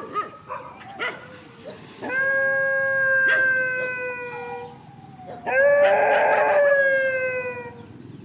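Dogs howling: a few short yelps, then two long, slightly falling howls, each held for about two seconds.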